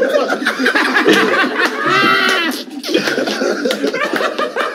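A small group of men laughing hard and shouting over one another, with a high-pitched yell about two seconds in.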